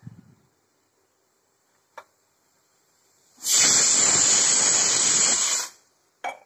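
Pressure cooker whistle letting off steam with a loud hiss of about two seconds, starting about three and a half seconds in and cutting off. It is the sign that the dal inside is cooking under pressure. A few faint knocks come before and after.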